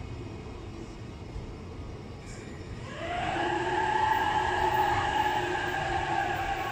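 E657 series electric train moving slowly alongside the platform, with a low rumble from the running gear. About three seconds in, the traction motors start a whine that rises in pitch and then holds steady, louder than the rumble. A single click comes just before the whine.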